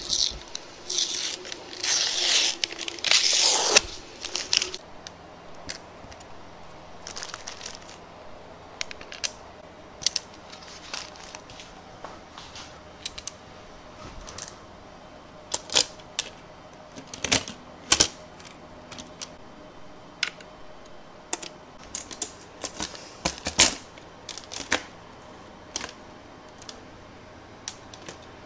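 Brown paper bag crinkling and rustling as it is opened and handled for the first four seconds or so, then scattered sharp clicks and taps.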